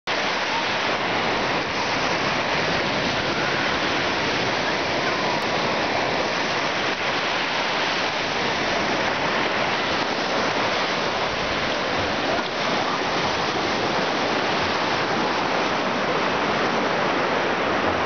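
Small Baltic Sea waves breaking steadily on a sandy shore, an even wash of surf with no pauses.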